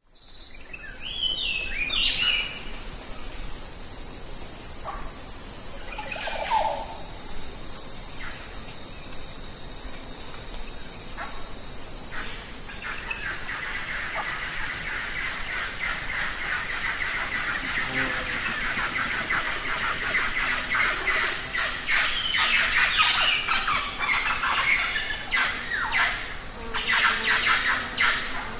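Birds chirping, with a steady high-pitched whine under them; the chirping grows thick and rapid from about halfway through.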